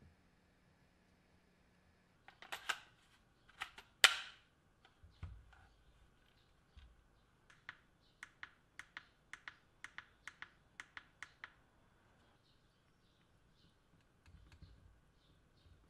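Small plastic clicks of a Milwaukee M18 impact driver's drive-mode selector button being pressed over and over, about three a second, cycling the repaired speed selector through its settings. A few louder clicks and snaps come first.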